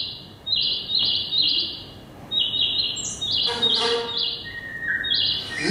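Birds chirping in short, repeated high tweets that come in little clusters: the forest soundtrack of an animated cartoon, played back through loudspeakers.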